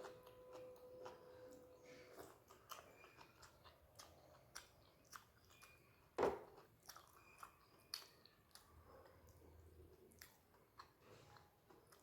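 Quiet close-up chewing of rice with fried onion stalks and potato, with scattered small crunches and clicks and one louder click about six seconds in.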